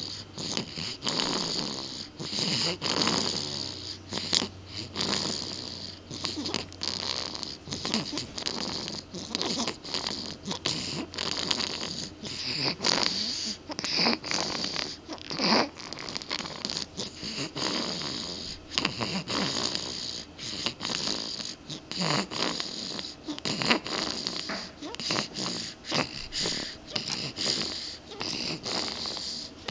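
Snoring: noisy breaths in close succession, continuing without a break.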